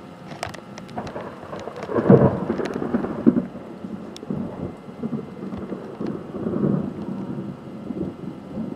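Thunder rumbling in uneven rolling waves, swelling to its loudest about two seconds in, over steady rain. A few sharp ticks sound in the first few seconds.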